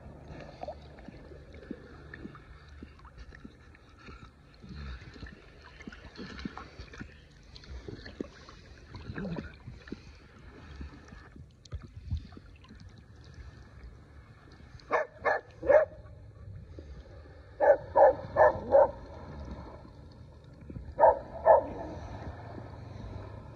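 Water sloshing and lapping around a swimming dog. In the second half a dog barks in short runs: three barks, then four, then two.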